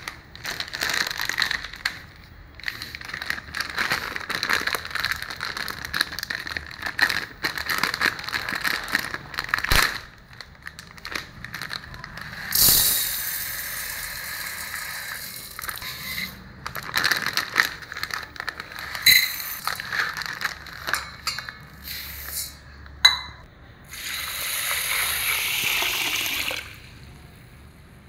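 Dry urad dal poured from a plastic bag into a steel measuring cup and bowl, the grains rattling and pattering on the metal with clinks of the cup. Near the end, water rushes into the bowl over the dal for soaking.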